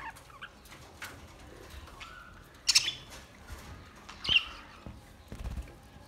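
Budgerigars chirping and chattering, with two loud, sharp squawks about three and four seconds in, and a brief low thumping near the end.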